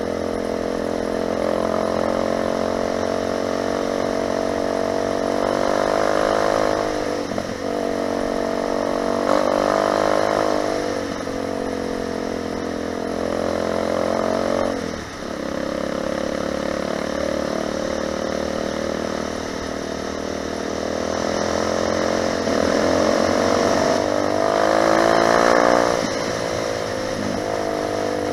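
Lifan 250 four-stroke pitbike engine pulling hard under way, its pitch climbing and falling as the rider works the throttle and gears, with brief drops in revs a few times and a strong run-up near the end.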